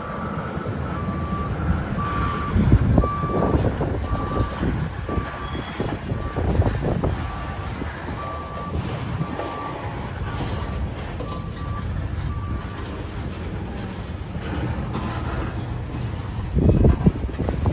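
A train rolling past with a steady low rumble and clatter. Grade-crossing signal bells ding over it: one lower bell through most of it, and a higher-pitched bell joining about halfway.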